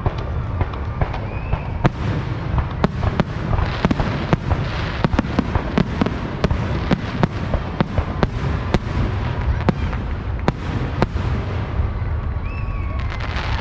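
Fireworks going off: a rapid, irregular string of sharp cracks and pops over a steady low rumble, thinning out near the end.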